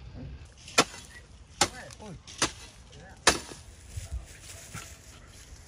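Four sharp chops, evenly spaced a little under a second apart, each a single hard strike.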